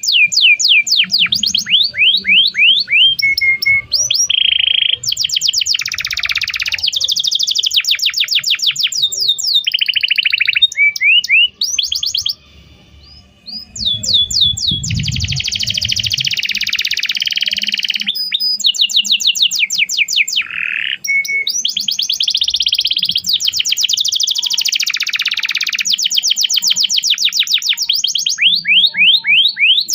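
Domestic canary singing a long song of fast repeated trills and rolls, each made of quick downward-sweeping notes, with a brief pause about twelve seconds in.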